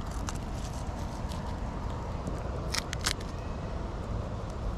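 Light clicks and taps from handling a small FPV cinewhoop drone by hand, over a steady background hiss, with two sharp clicks close together about three seconds in. The drone's motors are not running.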